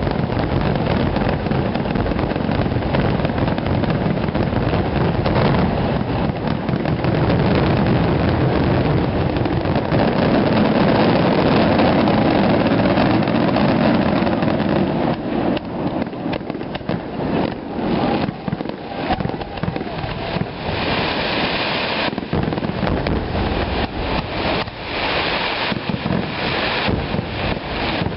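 Fireworks finale barrage: aerial shells bursting so closely together that they merge into one continuous rumble, breaking up about halfway through into separate sharp bangs with bright, hissing bursts between them.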